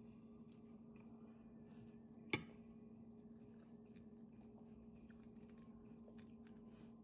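Faint chewing with small wet mouth clicks and smacks as a person eats fried fish and rice, over a steady low hum. One sharp click about two and a half seconds in.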